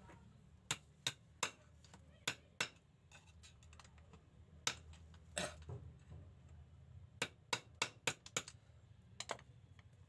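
Sharp metallic clicks and taps from hand tools working at the pinion end of a Toyota Avanza steering rack, coming irregularly in small groups, with a quick run of them in the second half.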